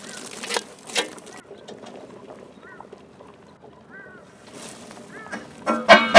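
Birds calling: short arched chirps every second or so, and a louder call near the end. Two sharp knocks come about half a second and a second in.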